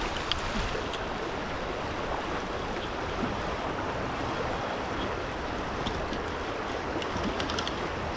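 Fast, turbulent river current rushing steadily past the rocks, with a few faint ticks in the second half.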